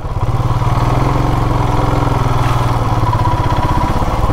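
Royal Enfield Classic 350's single-cylinder engine running steadily, with an even rapid pulse.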